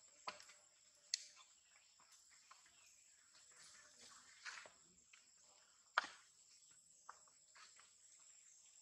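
Near silence: faint outdoor ambience with a steady high-pitched tone and light rustling, broken by a few soft sharp clicks, the loudest about six seconds in.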